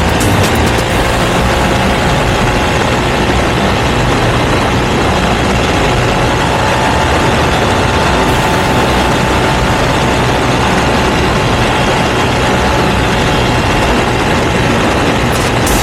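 Ducati V2 twin-cylinder engine breathing through a Termignoni exhaust, running steadily at an even, unchanging engine speed.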